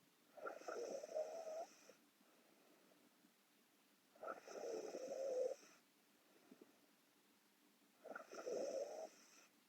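A sleeping woman snoring: three snores about four seconds apart, each lasting about a second and a half.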